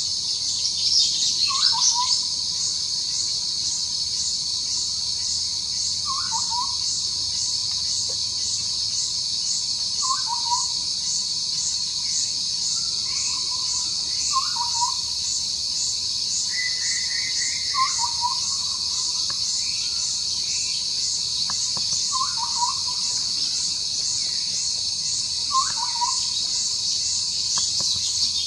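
A steady, shrill insect chorus with a fast pulse runs throughout. Over it, a bird gives a short call that falls in pitch about every four seconds, seven times, with a few fainter higher notes in between.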